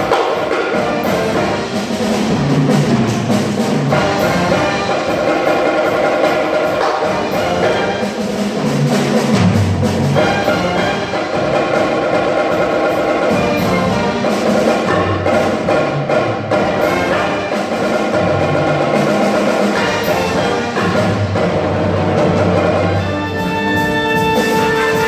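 School wind band playing a Spanish-style piece: brass and woodwind chords over a moving bass line, with percussion strikes. About 23 seconds in the texture changes to held notes.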